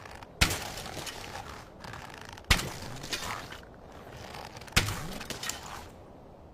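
Projectile impact sound effect: three sharp hits about two seconds apart, each followed by about a second of crackling, shattering debris.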